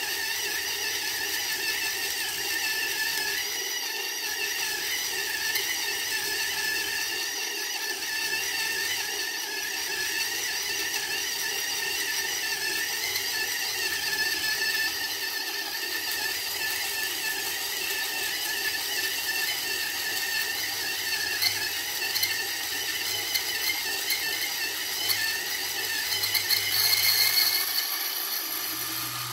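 Gawoody electric motor kit turning a 1Zpresso K Pro hand grinder, its burrs grinding very hard light-roast coffee beans at a near-Turkish fine setting. The motor and burrs run steadily, with a few sharp ticks, and get briefly louder near the end.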